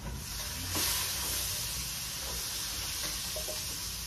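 Chicken pieces sizzling in hot oil with sautéed garlic, ginger and onion as they are stirred in the pan for tinola; the sizzle swells about a second in.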